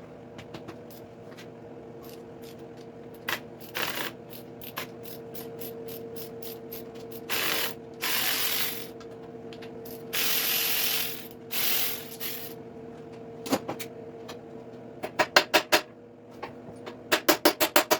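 Hand socket ratchet clicking in quick runs of strokes near the end, after scattered clicks and knocks of tools on the engine. Four short hissing bursts in the middle, over a steady faint hum.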